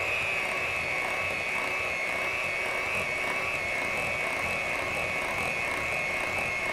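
Electric hand mixer running at a steady speed with a high, even motor whine, its twin beaters churning a thick ricotta and cream cheese mixture in a glass bowl.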